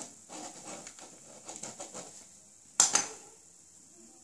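Pen scratching on paper in quick strokes, crossing out a written line, followed by one sharp click about three seconds in.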